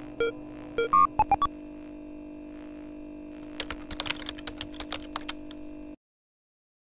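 Intro sound design over a steady synth drone: a few short electronic beeps in the first second and a half, then a quick run of computer-keyboard typing clicks from about three and a half seconds in. Everything cuts off suddenly about a second before the end.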